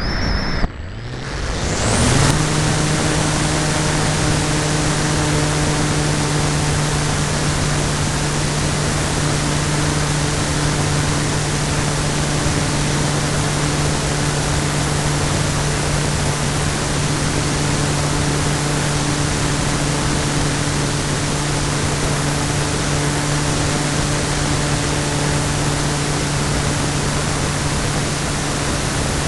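Electric motor and propeller of an RC Cularis motor glider spinning up with a quick rising whine about two seconds in, then running at a steady pitch under a loud rush of air over the onboard camera's microphone.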